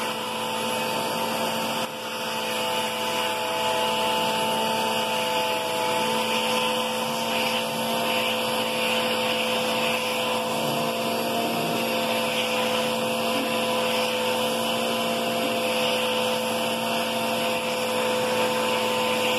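Upright vacuum cleaner running steadily, a motor whine over a broad rushing hiss, while its hose's brush nozzle is drawn over a cat's fur.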